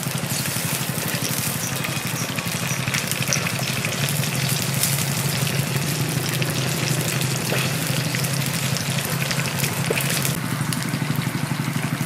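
Small fish deep-frying in hot oil in a pot, a steady sizzle flecked with dense crackling. A steady low hum runs underneath.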